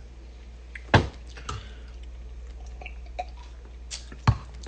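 Two sharp knocks, one about a second in and one near the end, with a few faint clicks between, over a steady low hum.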